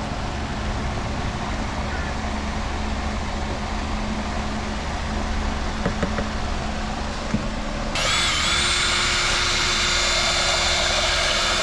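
Steady low rumbling background with a few light knocks, then about two-thirds of the way in an electric drill starts suddenly and runs at a steady speed with an even whine, mixing a batch of fiberglass resin.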